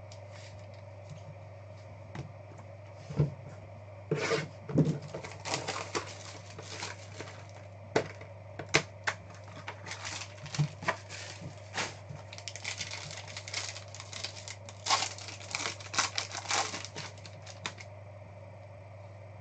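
Hands opening a trading-card box and handling its wrapper and cards: a fast, irregular run of clicks, taps and crinkling that starts a few seconds in and stops shortly before the end, over a steady low hum.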